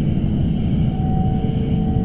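Suspense ambience sound effect: a dense, steady low rumbling drone, with two faint held tones coming in about a second in.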